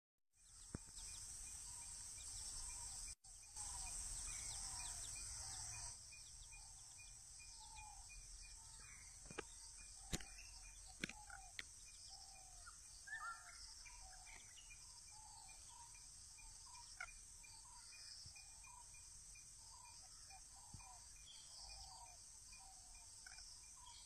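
Faint outdoor ambience: a steady high insect drone, louder for the first few seconds, with short bird calls scattered irregularly through it and a few sharp clicks near the middle.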